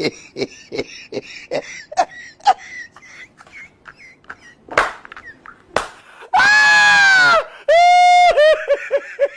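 A person's voice making short non-word sounds, then two loud, long, high-pitched cries: the first about six and a half seconds in and the second about a second later.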